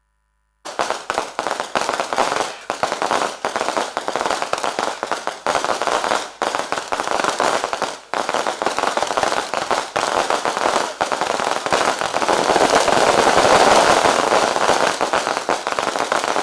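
Fireworks going off in a dense, continuous run of crackles and pops. They start suddenly about half a second in and grow loudest past the middle.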